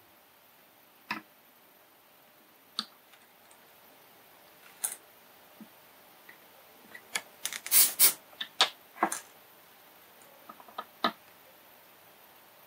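Light, sparse clicks and taps from hand-soldering the pins of a small surface-mount chip on a circuit board, with a quick run of clicks about halfway through.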